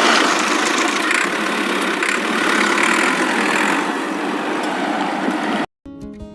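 Steady engine-like machine running noise that cuts off abruptly near the end, after which music begins.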